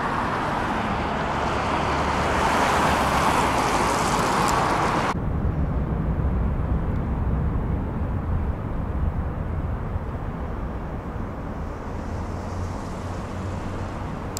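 Outdoor riverside ambience: a steady rush of distant city traffic that swells over the first five seconds, then breaks off at a sudden cut into a lower, uneven rumble, like wind on the microphone.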